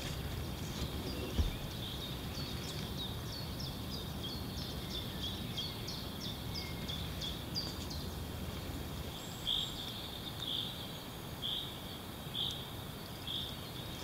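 Birds calling over a steady outdoor hiss: a run of short, quick chirps, about two or three a second, then slower, fuller notes about one a second near the end.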